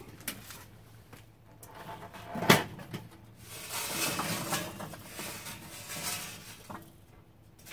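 Lit charcoal poured from a metal chimney starter into a Weber kettle grill: one sharp knock about two and a half seconds in, then a few seconds of coals clattering and sliding out.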